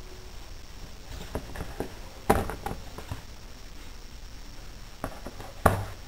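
Metal engine valves being pulled from a cylinder head and pushed through a cardboard holder: a few light taps and two sharp knocks, the first a little over two seconds in and the second near the end.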